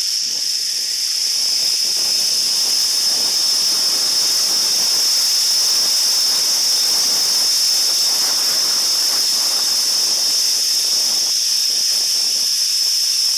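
Zipline trolley running along the steel cable with air rushing past the microphone, over a steady high-pitched hiss.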